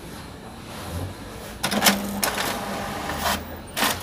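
HP DeskJet 2540 inkjet printer starting a print job. About a second and a half in, its mechanism starts with a run of clicks and a short motor whir, and clicks again near the end as it feeds the sheet.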